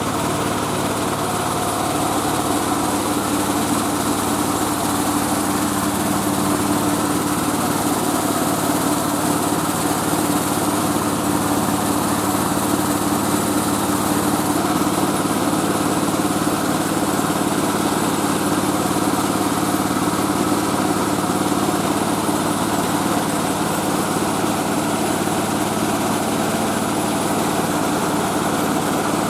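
Engine of a mobile rice-milling machine running steadily at an even speed, with a constant mechanical hiss over the engine note.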